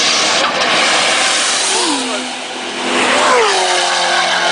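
Two cars racing past at high speed one after the other, engines at high revs with a loud rush of wind and tyre noise; each engine's pitch drops sharply as it goes by, the first about two seconds in and the second about a second later.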